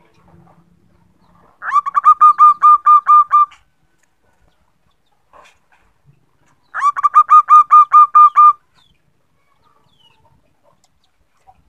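Female zebra dove calling: two bouts of rapid staccato cooing notes, about ten notes each, a few seconds apart, each bout opening on a slightly rising note.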